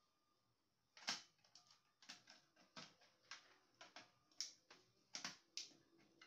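Irregular sharp clicks and light knocks of printer parts being handled and taken apart, about a dozen of them starting about a second in, the first the loudest.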